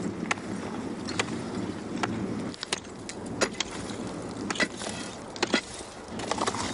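Chunks of frozen river ice being broken and handled: irregular sharp knocks and clinks, about a dozen, over a low rough noise that eases off after about two and a half seconds.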